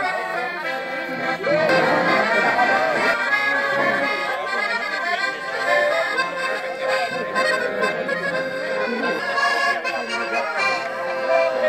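Two button accordions playing a traditional French bal-musette tune together.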